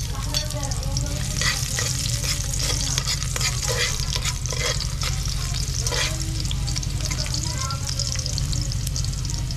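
Chopped garlic sizzling and crackling in hot oil in a metal pot as it is sautéed, with a metal spoon clicking and scraping against the pot.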